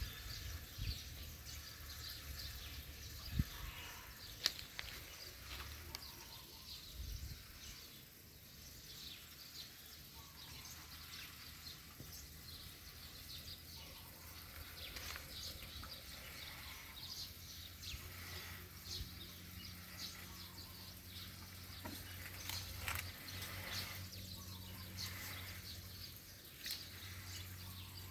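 Outdoor rural background with scattered short bird chirps and a few sharp clicks or knocks, over a low steady hum.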